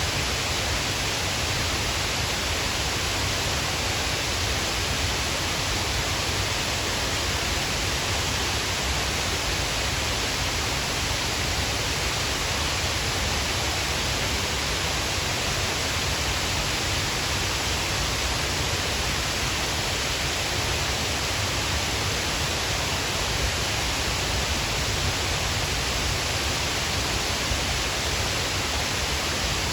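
Shiraito Falls, a waterfall: a steady, even rush of falling water, unchanging throughout.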